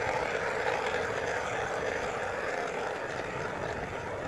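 Homemade electric ice auger, driven by a Toyota electric power-steering motor, drilling through lake ice: a steady grinding whir that fades a little as the auger sinks.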